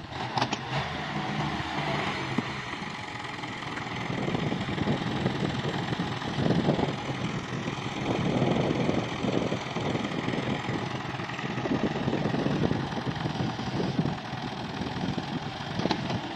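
Farm tractor's diesel engine running steadily at idle, louder for a few seconds in the middle.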